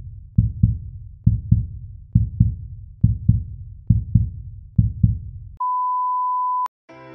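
Intro sound effects: deep double thumps like a heartbeat, six beats a little under a second apart, then a steady high beep held for about a second that cuts off with a click. Music with keyboard chords comes in near the end.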